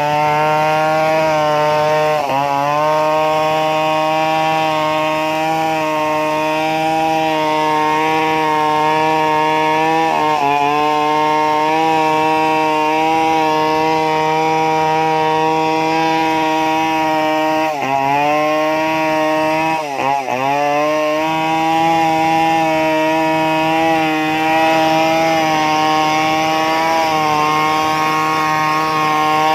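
Stihl 070 chainsaw's large single-cylinder two-stroke engine running steadily at high speed. Its pitch sags briefly and recovers a handful of times.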